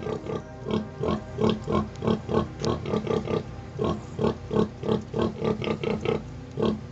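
Nursing sow grunting: a steady run of short, low grunts, about three a second. This is the rhythmic nursing call that a sow makes to her piglets while they suckle, the sow's 'song'.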